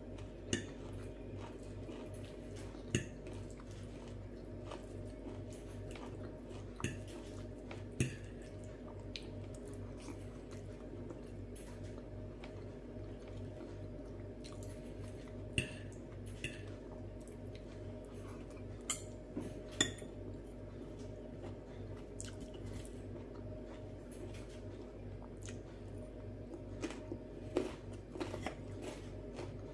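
Metal fork and knife clinking and scraping against a glass plate, with sharp clinks every few seconds and soft chewing in between, over a steady low hum.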